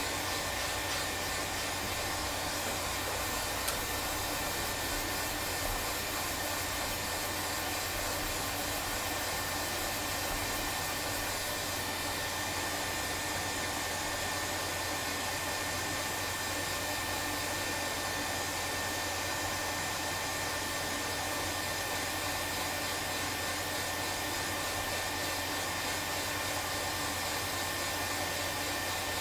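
Hot air rework station blowing at 99% airflow with its nozzle off: a steady rushing hiss with a thin constant whine. It is heating a circuit board before a chip is removed.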